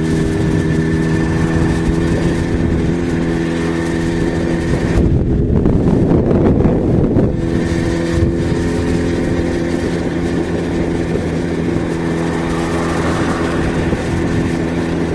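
Yamaha XJ6's inline-four engine running at a steady cruising speed on the road, with a louder rush of noise for about two seconds midway.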